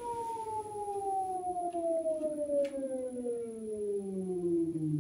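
Nissan Leaf permanent-magnet AC traction motor, driven unloaded on a bench by a 48-volt inverter controller, giving out an electrical whine that falls steadily in pitch as the motor slows. A faint click about halfway through.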